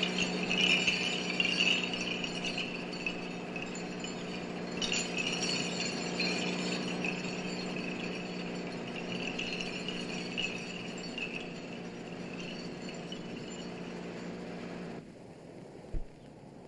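Film score music: a held low drone with shimmering, chime-like high notes. It cuts off abruptly near the end, and a single short thump follows.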